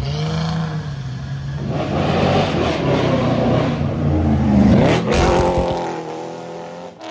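Chevrolet C5 Corvette's V8 accelerating past, the revs climbing to a peak about four and a half seconds in, then dropping away as the car pulls off.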